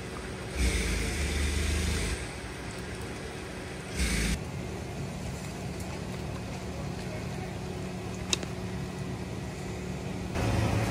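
Outdoor street ambience: a steady low engine hum, with a louder noisy rush of passing traffic about a second in and a short burst at about four seconds. A single sharp click comes near the end.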